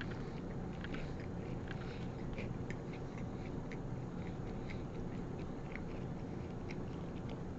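A person chewing a mouthful of fried chicken sandwich close to the microphone, with small irregular crunches from the crispy breading, over a steady low background hum.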